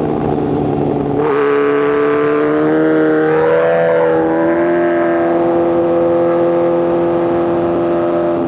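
2024 BMW S1000RR inline-four through a titanium exhaust, under way. About a second in the note jumps and grows louder, climbs in pitch for a couple of seconds, then eases slightly and holds a steady tone.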